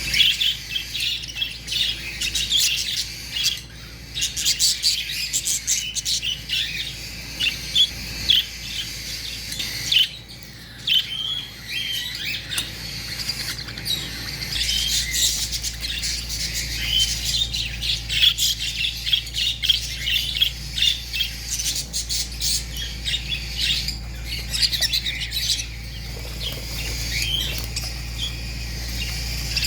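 A flock of birds chirping and squawking together, many short high calls overlapping without pause, with a brief lull about a third of the way in.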